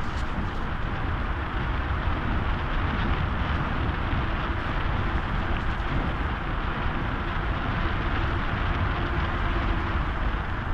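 Steady rush of wind over the microphone with a low rumble of tyres rolling on asphalt, from a vehicle on the move downhill.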